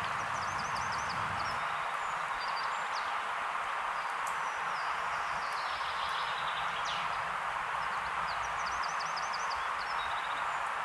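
Steady rain and white-noise hiss with birds chirping over it: a quick run of about six high chirps near the start and again near the end, with scattered calls in between.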